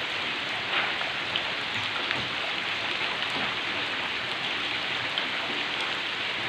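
Heavy rain falling steadily with no wind or thunder, a dense even hiss with scattered faint drop ticks.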